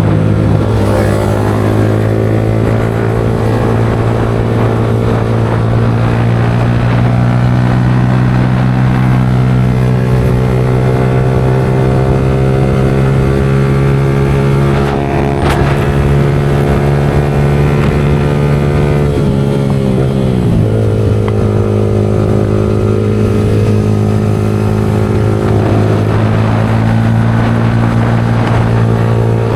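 Yamaha R15 V4's single-cylinder engine running through a Leo Vince aftermarket exhaust on the move, holding steady revs. About two-thirds of the way through, the pitch drops and then holds steady again at a lower note.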